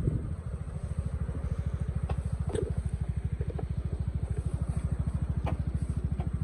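Motorcycle engine running at low revs with a steady, rapid, even pulse, with a few light clicks and knocks.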